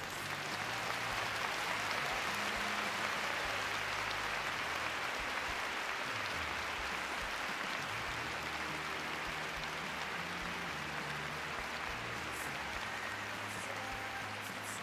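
Arena crowd applauding, swelling up quickly at the start and then holding steady, with faint music underneath.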